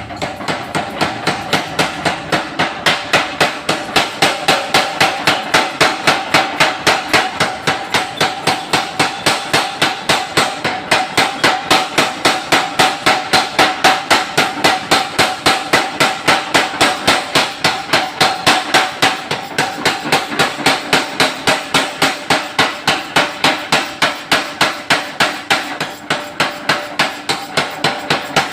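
45 kg mechanical forging power hammer running, its ram striking at an even rapid rate of about four blows a second, with a steady metallic ring under the blows.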